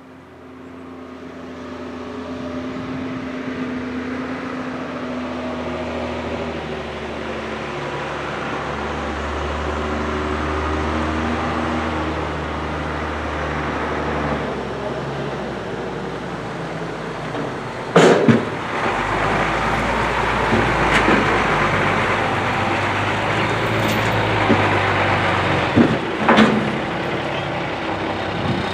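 Farm vehicle engine running and building up over the first couple of seconds, its pitch shifting as it works. Sharp knocks come about two-thirds of the way in and again near the end.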